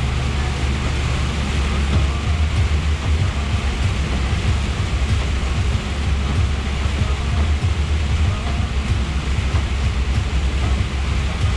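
Inside the cab of a Scania R420 truck cruising on a wet motorway: its straight-six diesel engine runs with a steady low drone under a constant rushing hiss of tyres on the wet road and rain.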